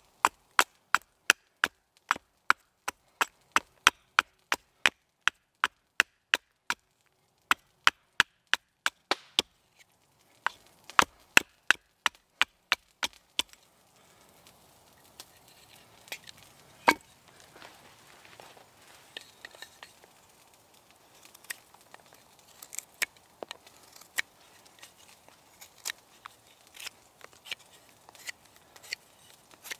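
Green wood being shaped by hand: about thirteen seconds of sharp chopping knocks on wood, evenly spaced at about two a second with two short pauses. Then quieter scraping and light clicks as a knife shaves the wood.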